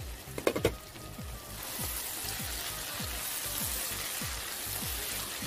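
Eggplant and peppers sizzling in oil in a frying pan, the hiss growing louder about a second and a half in, with a short clatter about half a second in. Background music with a steady beat runs throughout.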